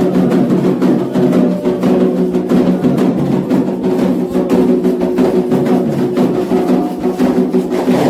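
Candomblé ritual drumming: atabaque hand drums and percussion playing a fast, dense, driving rhythm over a steady sustained tone.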